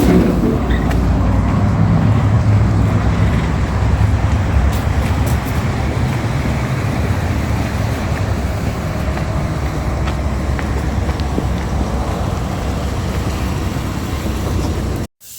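Steady road and engine noise of a moving car, with a strong low rumble, heard from inside the car; it cuts off abruptly near the end.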